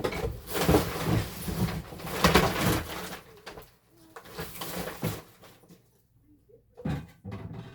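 Irregular knocks and rustling from things being handled and moved about for about three seconds, then much quieter with a few scattered knocks.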